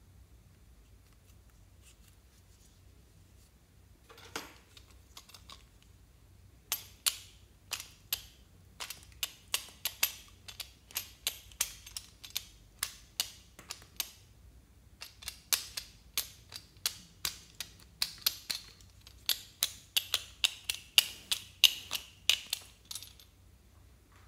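A peeler blade shaving slices off a red rose-shaped block, in a run of short, crisp scraping strokes about two a second, with a brief pause about halfway through.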